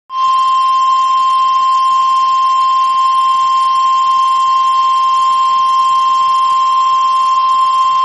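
NOAA Weather Radio 1050 Hz warning alarm tone: a single loud, steady beep held without a break. It signals that a weather warning broadcast is about to follow, here a severe thunderstorm warning.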